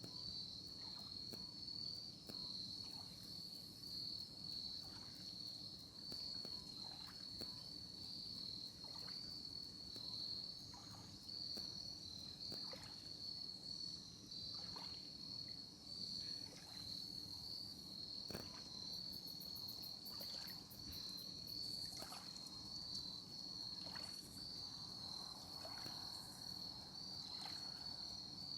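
Crickets chirping in a steady, high-pitched chorus, with faint scattered ticks.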